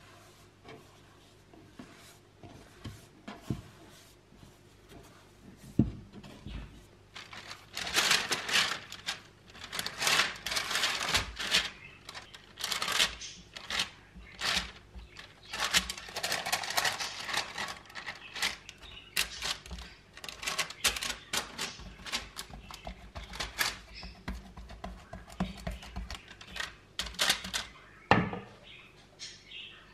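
Hands pressing and stretching sticky focaccia dough across a parchment-lined baking tray: a dense run of quick crackles and clicks from the baking paper and from the tacky dough pulling off the fingers, starting about a quarter of the way in. Before that, only a few soft clicks and a thump as the dough is handled in the bowl.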